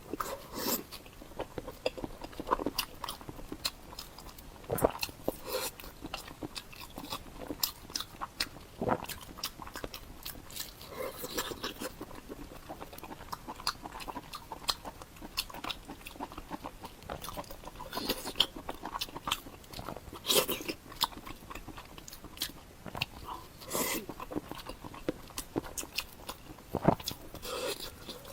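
Close-miked eating: a person chewing and biting salmon head, with many quick wet mouth smacks and crunches at an uneven pace.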